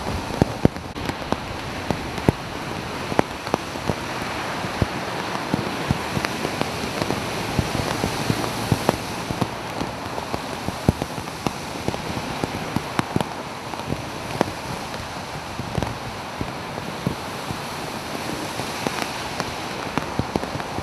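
Steady rush of rain and muddy floodwater on a street as cars drive through it, throwing up wakes, with irregular sharp ticks of raindrops landing close to the microphone.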